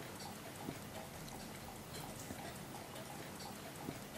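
Mechanical clock ticking faintly, a steady run of small ticks.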